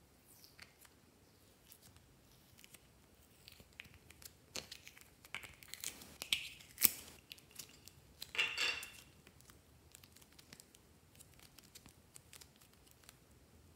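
Soft clay being squeezed and peeled out of a flexible plastic mould by hand: small sticky crackles and clicks, busiest in the middle with one sharp snap and a short crinkling rustle, then only faint ticks as the clay is stretched.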